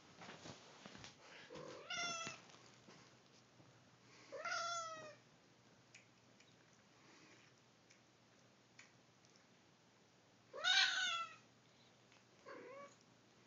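Sphynx cat meowing four times while play-wrestling with another cat. The drawn-out calls glide in pitch, and the third is the loudest.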